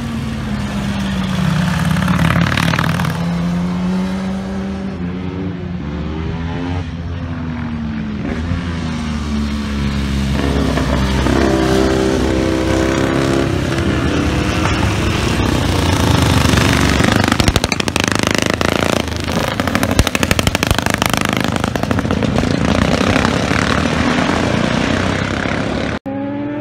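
Motorcycles passing one after another at speed, each engine's pitch falling as it goes by, with a stretch of rapid, sharp exhaust beats about two-thirds of the way through. The sound breaks off briefly near the end.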